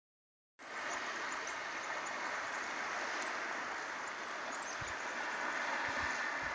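Steady, even rushing outdoor ambience of wind and lakeshore, starting about half a second in. A few faint high chirps and a couple of low bumps on the microphone come near the end.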